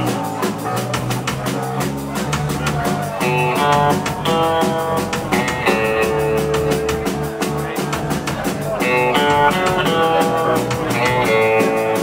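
Live rock band playing: distorted electric guitar chords over bass guitar and a drum kit, with a steady quick hi-hat beat of about five strokes a second.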